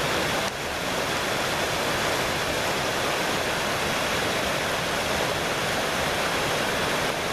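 Small mountain stream rushing over rocks in little cascades, a steady splashing rush of water.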